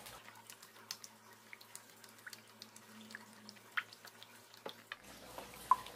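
A gloved hand beating thin batter in a plastic bowl: faint, irregular wet slaps and drips as the fingers churn the runny mixture.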